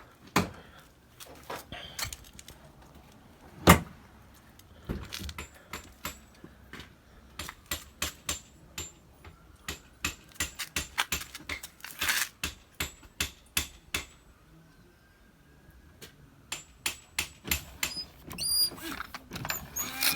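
A string of irregular clicks and knocks, with the loudest knock about four seconds in.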